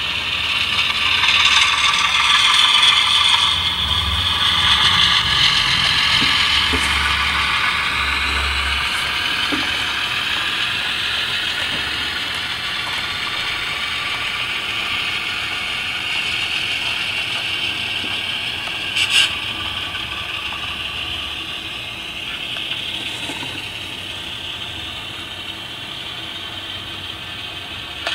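HO scale model diesel locomotive running with a short train: the whine of its motor and gears, its pitch drifting slowly as the speed changes, over wheel noise on the rails. A sharp click about 19 seconds in.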